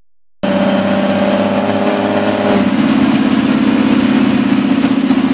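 After a brief dropout at the start, a truck engine runs steadily under way, heard from inside the cab, getting a little louder about halfway through.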